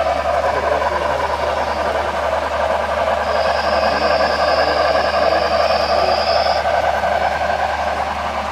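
HO scale model train, a streamlined Pennsylvania Railroad steam locomotive with hopper cars, running steadily across a trestle with a continuous rolling rumble of wheels on track. A thin high steady tone sounds for about three seconds in the middle.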